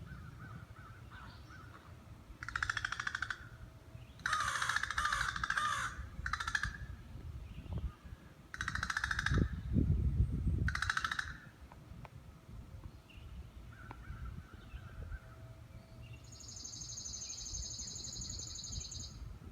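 A bird giving a series of harsh, raspy, crow-like calls, about five in the first half, one of them longer than the rest. Near the end a steady high-pitched buzz takes over for a few seconds.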